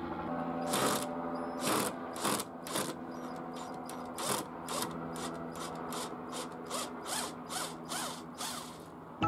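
A woodworking tool working in a run of short, sharp clicking strokes, about one to two a second and coming faster in the second half, over a faint steady hum.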